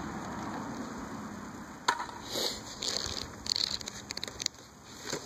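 Paper rustling and crackling as the pages of a spiral-bound sketchbook are handled and turned, with a sharp click about two seconds in.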